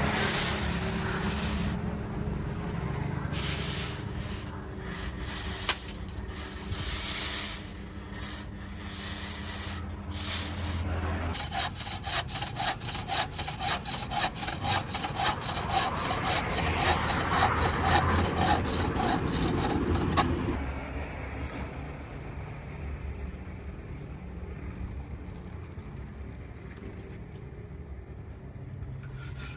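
Rasping hand-tool strokes of sawing or filing, working back and forth. The strokes are fast and dense through the middle stretch, then lighter and quieter for the last third, with a steady hum underneath at the start.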